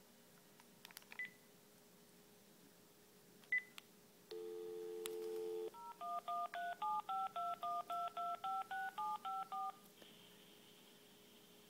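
Cordless phone handset: two short key beeps, then a dial tone for about a second and a half, then a quick run of about fifteen touch-tone digits, roughly four a second, as a long number is dialled. A faint line hiss follows once dialling ends.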